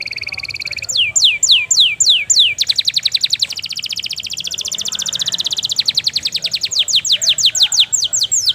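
Canary singing loudly in a continuous song: a steady trill, then a run of falling whistled sweeps at about three a second, a long fast trill, and more falling sweeps near the end.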